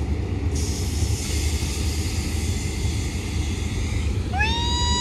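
Diesel locomotive engine running with a steady low rumble. Near the end a horn sounds: its pitch slides up briefly and then holds for about a second.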